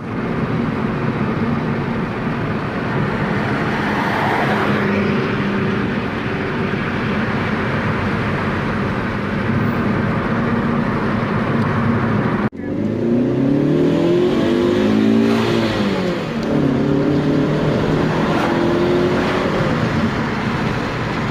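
Alfa Romeo GT 2.0 JTS four-cylinder petrol engine running steadily. After a sudden cut about twelve seconds in, it is revved, its pitch rising and falling several times.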